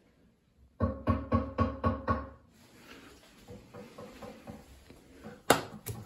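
A quick run of about seven ringing taps, about four a second, like someone knocking on ceramic. Each tap has a clear pitch. Near the end come two sharp knocks about half a second apart.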